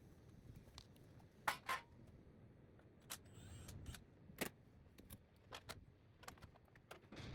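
Faint, scattered metallic clicks and clinks of a wrench and loose bolts as the 12 mm bolts holding a tiller's transmission tube are undone and set down.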